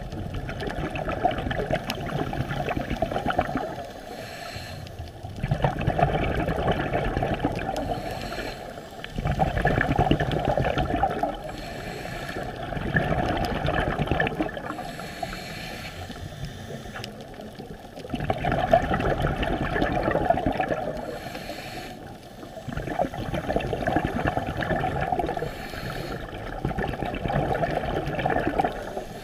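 Scuba diver's exhaled air bubbling out of the regulator underwater, in surges of a few seconds that return every four or five seconds with each breath, with quieter gaps between.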